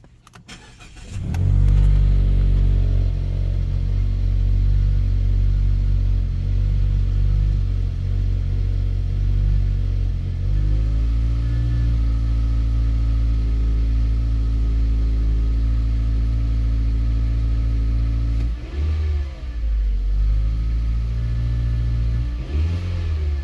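2014 Mazda 3's four-cylinder engine cranked by the starter and catching about a second and a half in. It runs fast and unsteady at first, the startup misfire, then settles to a lower, steadier idle about ten seconds in. Near the end the engine note briefly dips and wavers twice.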